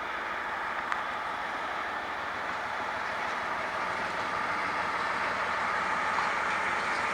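A train running near a railway level crossing, its steady running noise slowly growing louder as it approaches. There is one sharp click about a second in.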